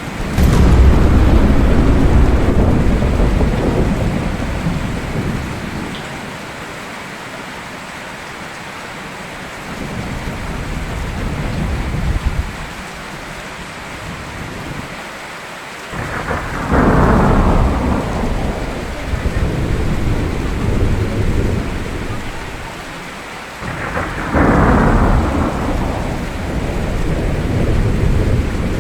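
Steady rain with thunder: a sharp thunderclap right at the start that rolls off into a long rumble, a softer rumble a little later, and two more claps, one a little past halfway and one near the end, each rolling on for several seconds.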